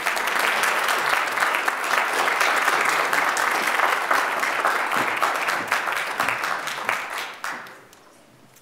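Audience applauding: dense clapping that thins out and dies away about eight seconds in.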